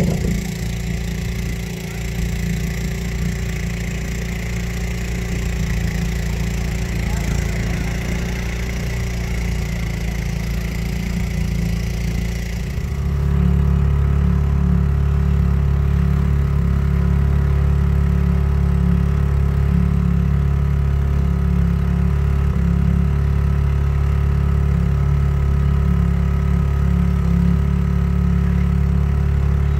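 Small boat's outboard motor running steadily, a low hum. About 13 s in it changes abruptly to a louder, steadier run.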